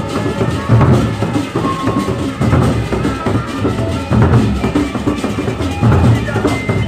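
Gendang beleq ensemble playing: large Sasak double-headed barrel drums beaten by hand in a driving interlocking rhythm, with a heavy low stroke recurring a little under every two seconds.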